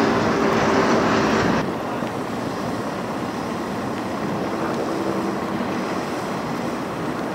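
Steady outdoor rumble and hiss with a faint engine-like hum, dropping abruptly in level about a second and a half in.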